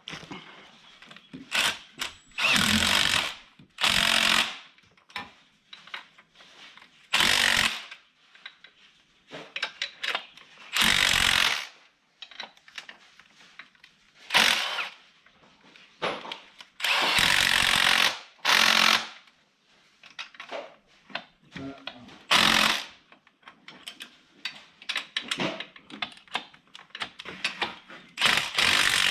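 Power tool with a socket running down the intake manifold nuts in short bursts, about nine of them, with light clatter of parts between.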